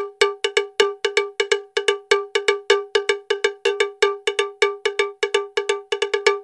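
A fast repeating percussion pattern of bell-like strikes on one pitch, about four to five a second, each ringing briefly. It is an added soundtrack loop.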